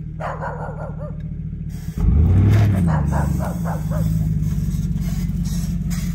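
Engine of a chained, plow-fitted SUV running, growing suddenly louder about two seconds in as it revs, while a dog barks in quick runs near the start and again from about two to four seconds in.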